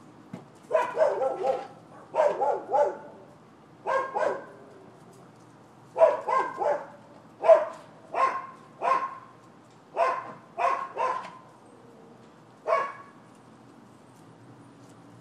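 Dog barking over and over, in single barks and quick runs of two or three, falling quiet near the end.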